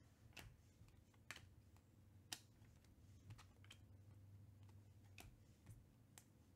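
Faint, irregular clicks, about one a second, of stiff chromium Panini Prizm baseball cards knocking against each other as they are leafed off a stack from one hand to the other, over a low steady hum.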